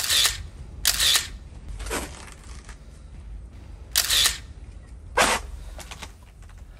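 Camera shutter clicks, five short ones spread unevenly over about five seconds, the third fainter, as a phone takes photos.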